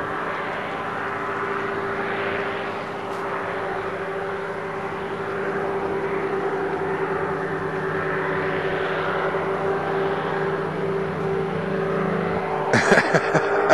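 A powered parachute's engine and propeller run steadily, one drone with a fixed pitch. About a second before the end, a quick, even series of sharp ticks starts over it.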